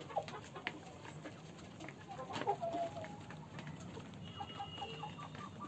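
Young desi hens clucking while feeding, their beaks tapping on the plastic feeder tray in many short clicks. One louder call comes about two and a half seconds in, and a quick run of short repeated calls follows near the end.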